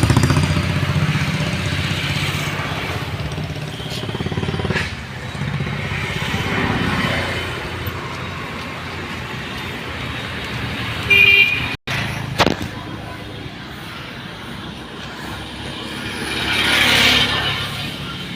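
Road traffic: vehicle engines running steadily, with a short horn toot about eleven seconds in and a vehicle swelling past near the end.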